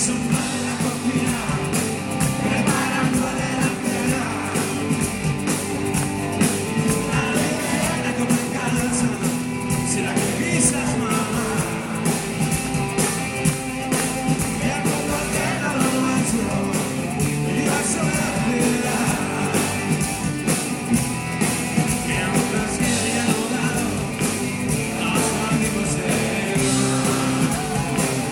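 Rock band playing live: singing over guitars and a steady drum beat.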